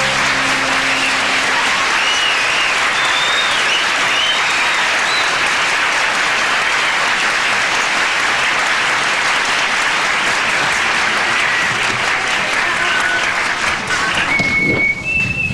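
Audience applauding, a dense steady clapping, with high whistles wavering over it. The last held note of the music dies away in the first second or two.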